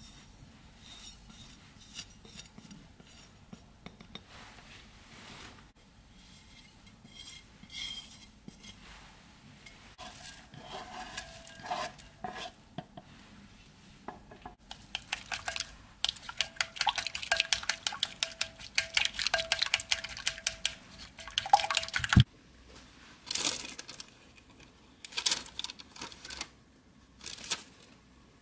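A utensil stirring and beating egg mixture in a ceramic bowl. At first there are light scattered clinks, then about seven seconds of rapid clicking against the bowl, ended by a single sharp knock. A few separate clinks follow.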